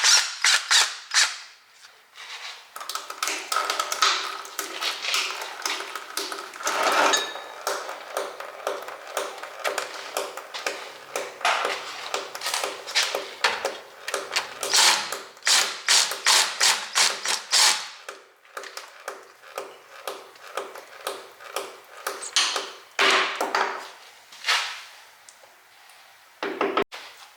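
Hand ratchet clicking in quick runs, with metal taps and clinks, as a plug is worked loose on a rear differential.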